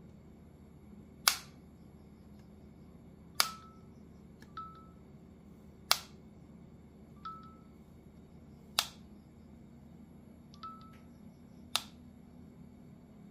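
Apple AirPods Pro (2nd generation) charging case lid being flipped open and snapped shut again and again. Five sharp clicks a few seconds apart as the lid snaps closed, with softer clicks that carry a brief ringing note in between as it opens.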